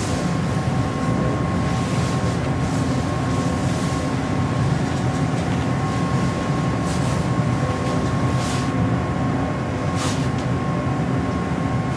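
Aerial cable car gondola running, heard from inside the cabin: a steady low mechanical rumble with a few constant hum tones, and short hissing sounds now and then, about seven and eight and a half seconds in and again near the end.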